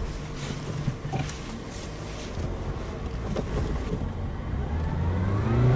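Steady low engine and road rumble of a moving car, heard from inside the cabin. Music comes in near the end.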